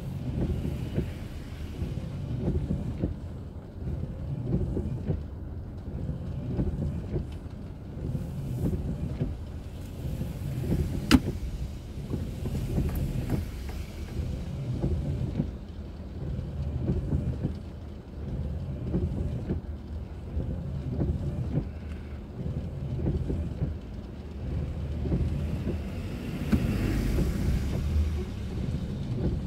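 Steady low rumble of a car's engine and tyres while driving, heard inside the car's cabin, with one sharp click about eleven seconds in.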